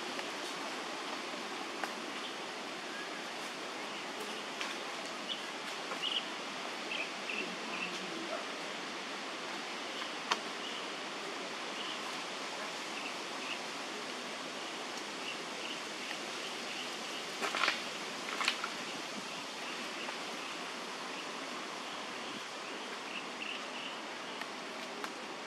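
Steady outdoor forest ambience: an even hiss, with many faint short chirps scattered through it and a few brief clicks, the loudest two close together about two-thirds of the way through.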